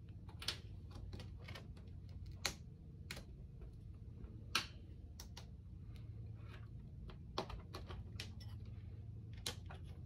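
Scattered light clicks and ticks, about half a dozen spread irregularly, from fingers handling and lifting an iPad 6's LCD panel out of its housing, over a low steady hum.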